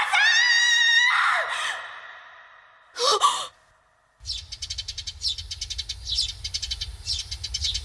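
A girl's high-pitched cry trailing off with an echo, then a short sharp gasp about three seconds in as she wakes from a nightmare. After a moment of silence, birds chirp rapidly over a low steady hum.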